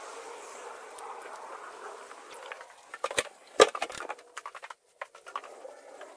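A steady outdoor hiss, then a run of sharp knocks and clicks, the loudest about three and a half seconds in: footsteps and hand-held phone handling noise as someone walks in from a garden and along a hallway.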